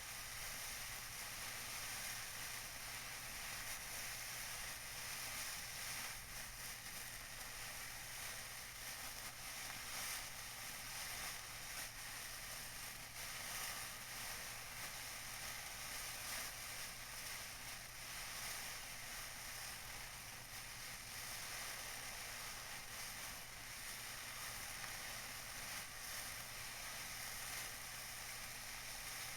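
Tissue paper being crinkled: a dense, steady crackling with no pauses.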